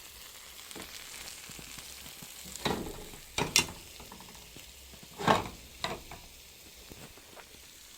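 Food sizzling in a cooking pot, a steady hiss, with a spoon scraping and knocking against the pot a few times near the middle.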